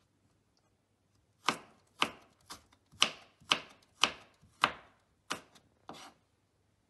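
Chinese cleaver chopping through sweet potato onto a wooden cutting board: about nine sharp knocks, roughly two a second, beginning about a second and a half in.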